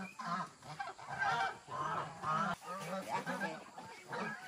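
Geese honking, many short calls overlapping in quick succession.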